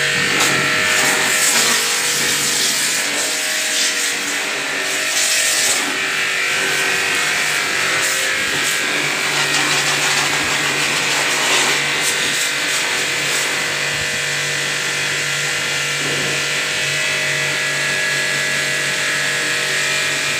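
Pressure washer running steadily: the loud hiss of its water jet spraying a motorcycle's frame and wiring area, over a steady hum from the machine.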